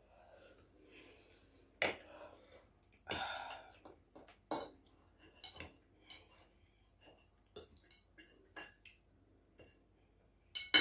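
Metal forks clinking and scraping on plates as noodles are twirled and eaten, in scattered short clicks, with a few breathy mouth sounds of eating.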